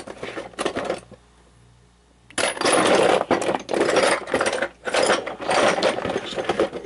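Small metal tools and parts rattling and clinking as someone rummages through them, with a short lull and then a dense clatter from about two seconds in.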